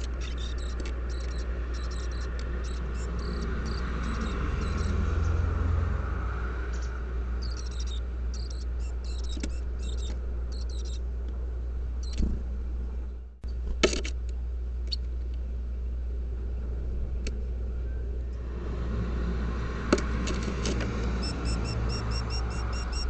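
Small birds moving and calling inside a wooden nest box: quick runs of short high ticks and chirps over a steady low hum. The sound drops out briefly about thirteen seconds in, followed by a few sharp clicks.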